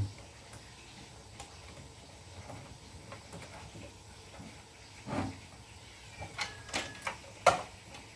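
Hands handling the desktop computer's metal case and power supply. After a quiet stretch, a few sharp clicks and knocks start about five seconds in, with the loudest near the end.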